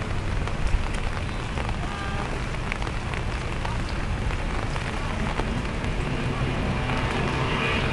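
Steady hiss of heavy rain, with the outboard engines of racing powerboats faint in the distance and growing a little louder near the end.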